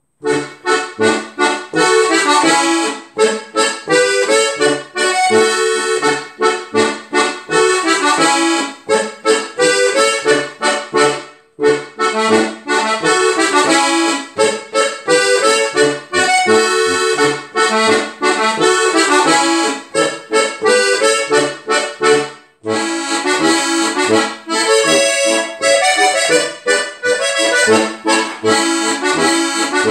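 Styrian diatonic button accordion (steirische Harmonika) playing a polka solo: a melody over a regular alternating bass beat, with two brief breaks between phrases, about a third and two thirds of the way through.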